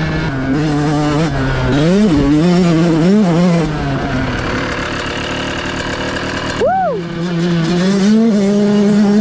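Stock Yamaha YZ125 two-stroke dirt bike engine: the throttle is blipped twice about two and three seconds in, the engine settles to a lower steady note, gives one quick sharp rev near seven seconds, then runs steadily.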